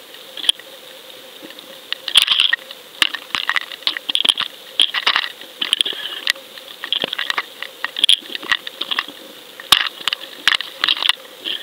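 Irregular sharp clicks and short crackling bursts picked up underwater by a camera housing on a fishing rig, over a faint steady hum.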